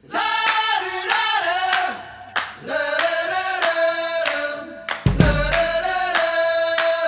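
Pop-rock song with group singing over steady handclaps; a bass drum comes in about five seconds in.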